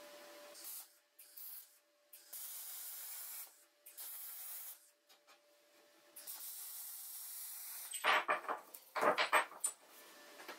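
Three bursts of compressed air hissing from a blow gun, with short quiet gaps between them. Near the end comes a loud rattle of metal pieces knocking on a steel table.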